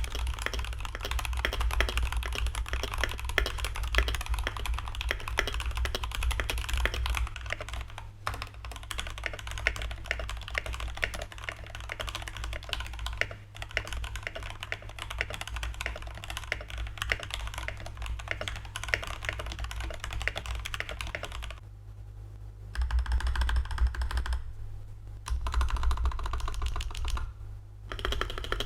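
Typing on a Gammakay TK68 65% mechanical keyboard with its stock switches and stabilisers and a silicone case mod: a dense, continuous run of keystroke clacks, broken by a few short pauses and louder flurries near the end.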